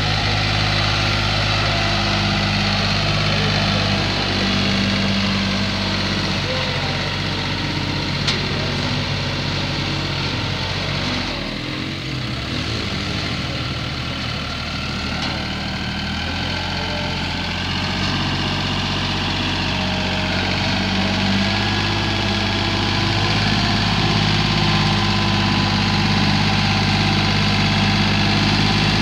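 Compact John Deere tractor engine running steadily at low speed while the tractor drives slowly; the engine note dips briefly about twelve seconds in, then settles again.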